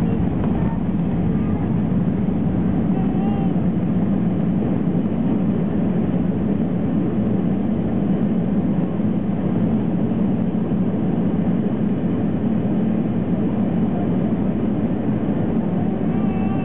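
Steady roar inside the cabin of an Airbus A321 airliner during landing: engine and airflow noise at an even level.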